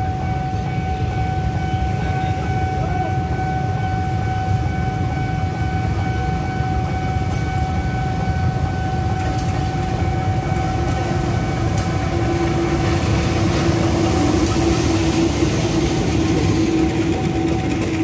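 CC 201 diesel-electric locomotive (GE U18C type) approaching with its diesel engine running, growing louder as it passes, then its passenger coaches rolling by with wheel noise and clicks over the rails. A steady level-crossing warning tone sounds throughout.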